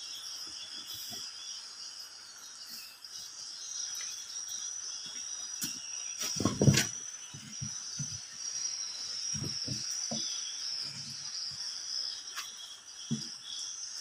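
Steady high-pitched insect chirring throughout. About halfway through comes one heavy thump, followed by a few softer knocks, as a person steps onto a truck tyre on its rim.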